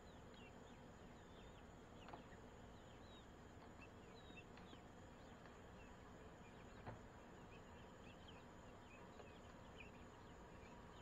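Faint night ambience of insects: a steady high-pitched drone with scattered soft, short high chirps throughout. Two faint clicks, about two and seven seconds in.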